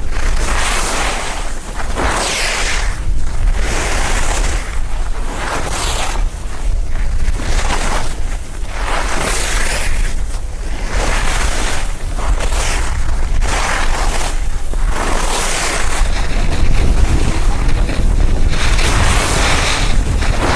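Skis carving down a snow slope, a scraping swish of the edges on each turn at about one a second, with wind rumbling on the microphone, stronger near the end.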